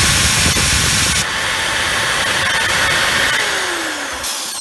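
Small power drill running steadily, boring a hole into a plastic RC car body post; it winds down near the end.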